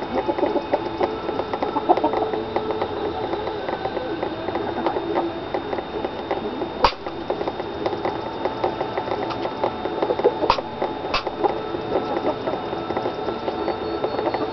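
Chickens pecking brown marmorated stink bugs off a sterling silver candy dish and the pavement around it: a steady patter of small beak taps, with three sharper clicks, one near the middle and two close together about four seconds later.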